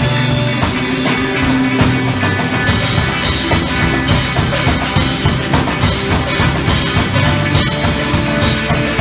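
Live rock band playing, with drums and guitar over held low notes; the cymbals and drums become busier about three seconds in.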